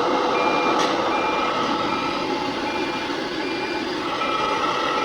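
A high electronic beep repeating at a steady rhythm, about once a second, over the steady hum of running machinery.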